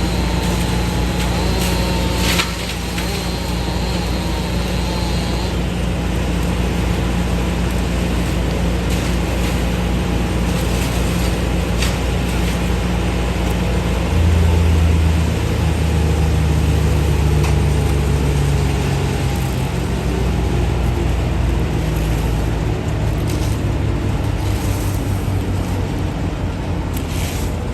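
A large engine runs steadily with a low hum. About 14 seconds in it gets louder and its pitch shifts, as if under load or revved.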